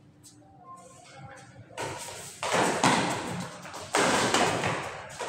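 Badminton rackets striking a shuttlecock during a rally, after a quiet start: a few sharp hits beginning about two seconds in, each trailing off in the hall's echo.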